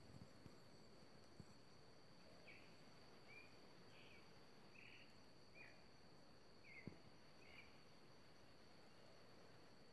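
Near-silent scrubland ambience: a steady thin high tone, like an insect's drone, under a run of short chirps from a small bird, about one a second through the middle, with a couple of faint clicks.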